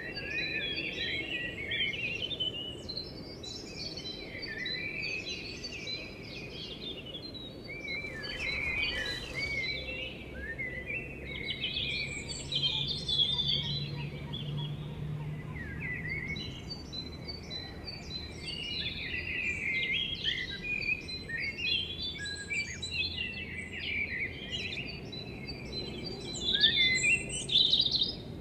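Dense chorus of songbirds chirping and trilling, many short overlapping calls, over a faint steady low background noise.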